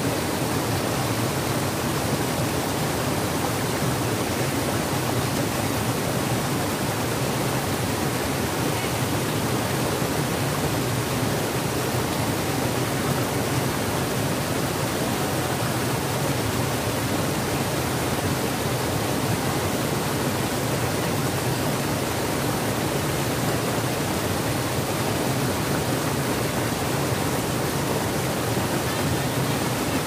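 Mountain stream rushing and splashing over boulders in small cascades: a steady, even rush of water.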